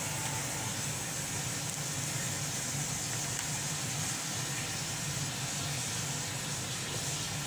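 Steady machine hum with a constant hiss over it, unchanging throughout.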